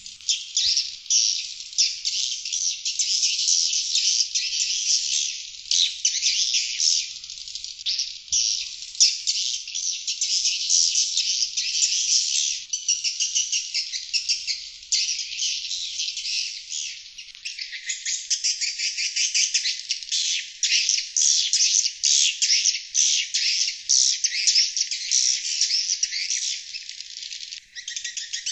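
Sriti swiftlets (Collocalia) calling: a dense, continuous, rapid high twittering from many birds, played as a lure recording to attract wild swiftlets to a nest house. The sound is thin, with the low end cut away.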